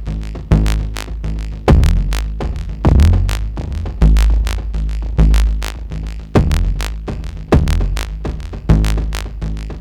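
Make Noise XPO Stereo Prismatic Oscillator, its Vari-Timbre and Spike outputs, playing a looping modular-synth pattern. A deep bass note comes about once a second, each starting with a falling sweep, under a run of sharp, bright clicks.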